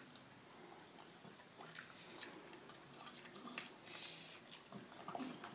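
Faint, scattered small clicks and mouth sounds from a Shiba Inu shifting over a treat it has dropped on the stairs.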